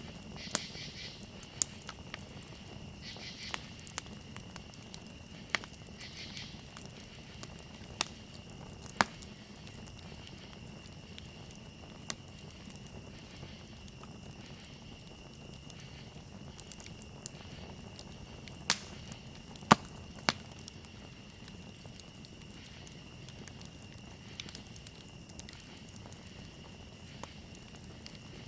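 Campfire burning with a steady low rush and irregular sharp crackles and pops of the wood, three loud pops coming close together about two-thirds of the way through. A faint steady high tone runs underneath.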